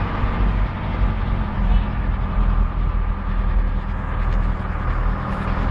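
Vehicle engine running steadily with road noise from driving over a rough dirt track, heard from inside the cab.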